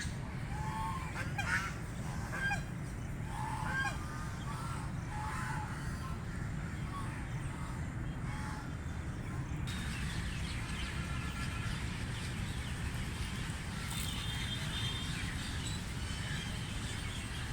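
Mallard ducks quacking while feeding, with a run of short calls in the first few seconds that then thins out. A steady low rumble runs underneath, and faint higher chirps come in over the second half.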